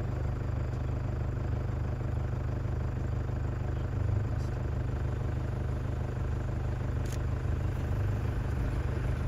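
Safari vehicle's engine idling steadily, a low even hum.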